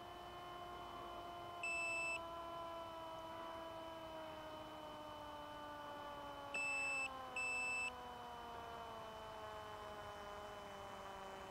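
Faint electric motor of a small FPV plane on its landing approach, its pitch falling slowly as it winds down. Three short electronic beeps: one about 2 s in, then two in quick succession about 7 s in.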